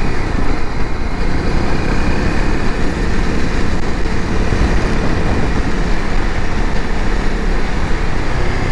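Off-road motorcycle engine running at a steady cruise while ridden, mixed with wind and road noise.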